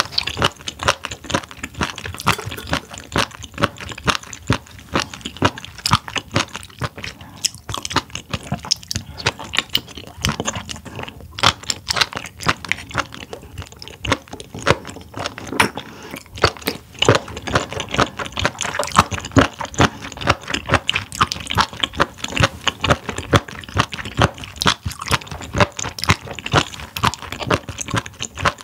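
Close-miked chewing of raw spoon worm (gaebul): a dense, irregular run of sharp crunching clicks as the firm, rubbery flesh is bitten and chewed.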